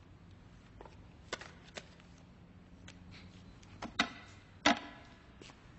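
A few scattered small clicks and knocks over a faint low hum, the two loudest, sharper knocks coming close together about four seconds in.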